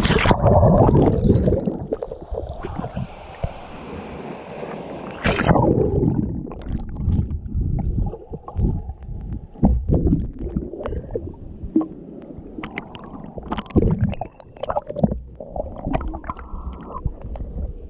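Water splashing and gurgling close to the microphone, with loud surges near the start and about five seconds in, then irregular knocks and sloshing.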